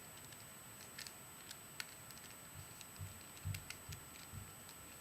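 Plastic Rubik's Cube being turned by hand: faint, scattered clicks as its layers snap round, with a few soft low thumps a little past the middle.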